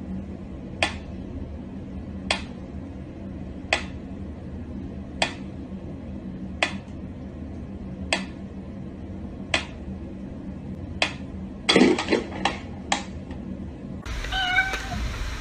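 Mechanical pendulum metronome ticking slowly and evenly, one sharp tick about every second and a half. Near the end a cat's short meow is the loudest sound, followed by a few quicker clicks.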